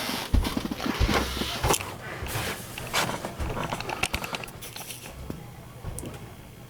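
A folded paper poster being handled and unfolded: irregular rustling and crinkling with sharp clicks and a few soft knocks, busiest in the first few seconds and quieter afterwards.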